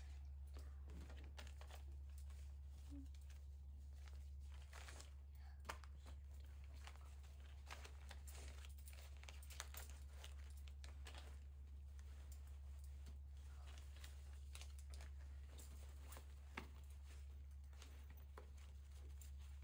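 Faint rustling, crinkling and small clicks of a handbag and its contents being rummaged through, over a steady low hum of room tone.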